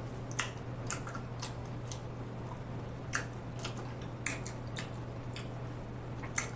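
Close-miked chewing of crunchy hard-shell tacos: irregular crisp crunches and wet mouth clicks, over a steady low hum.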